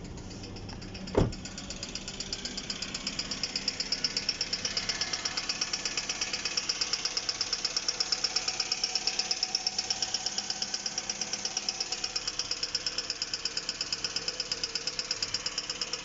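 Hyundai/Kia G4GC 2.0-litre four-cylinder engine running with a fast, regular rattling knock, coming most from the cam phaser end of the engine. The owner suspects the CVVT cam phaser, since its oil control valve has tested fine. A single sharp thump about a second in.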